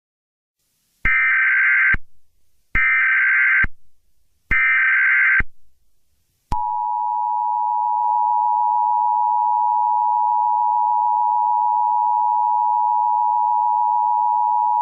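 Emergency Alert System tones: three short bursts of the digital SAME header, a harsh data warble, followed by the EAS two-tone attention signal held steady for about eight seconds before it cuts off. Together they mark the start of a new emergency alert broadcast.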